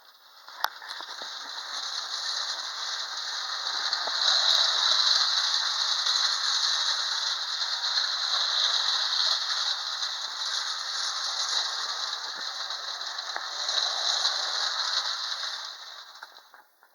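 Hafner clockwork windup toy locomotive running around tinplate track: the steady whirring rattle of its spring motor and wheels on the metal rails. It starts with a click just under a second in, grows louder twice and fades out near the end.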